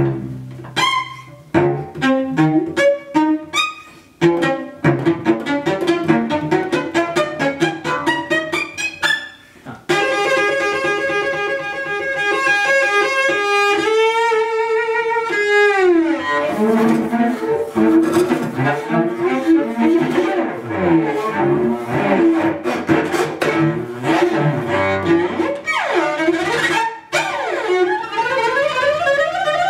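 Solo cello, played in a string of short, quick separate notes for about the first ten seconds, then a long held bowed note that slides down in pitch about fifteen seconds in. Busier bowed notes follow, with rising slides near the end.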